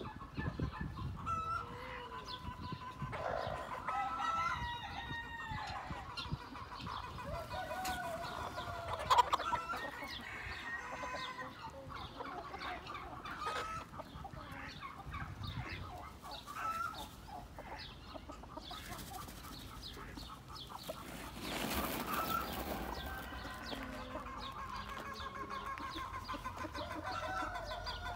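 A flock of chickens clucking and calling on and off, with a rooster crowing now and then. A sharp, louder sound comes about nine seconds in.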